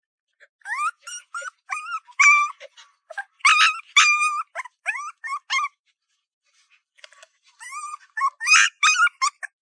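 A puppy whining and yipping in a quick series of short, high-pitched calls that slide upward in pitch, with a brief pause before a second, shorter bout near the end.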